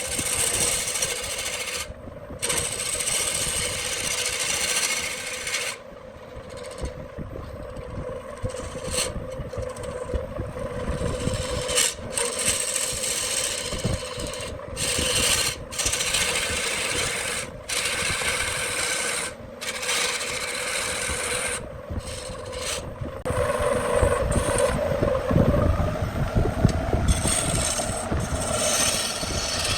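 Wood lathe running with a steady hum while a tool scrapes and rasps against the spinning wood-and-epoxy workpiece. The scraping is broken every few seconds by short gaps.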